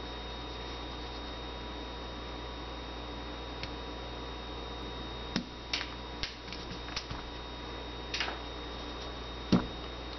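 Small metal clicks and ticks from a flattened paper clip and steel parts as the spring-loaded safety detent of a Beretta 21A Bobcat pistol is pressed into the frame, several in the second half, then one sharper knock near the end.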